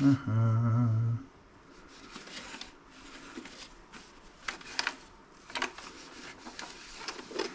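Electric can opener's small motor buzzing for about a second, followed by light clicks and rattles of its plastic housing being handled and taken apart.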